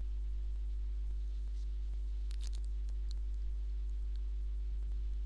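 Steady low electrical hum in the recording, with a few faint clicks about two and a half seconds in.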